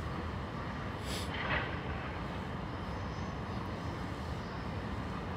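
Steady low rumble of distant city traffic, with a short hiss about a second in.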